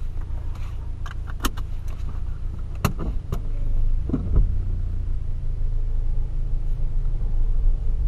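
Volkswagen Polo's engine idling, heard inside the cabin as a steady low rumble, with a few sharp clicks from handling inside the car.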